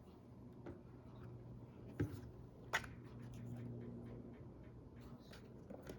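Faint handling noise over a low steady hum, with two sharp clicks about three-quarters of a second apart, a couple of seconds in, and scattered light ticks.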